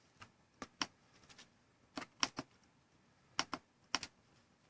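Computer keyboard keys being pressed: about ten sharp clicks in short, irregular clusters, spaced out rather than steady typing.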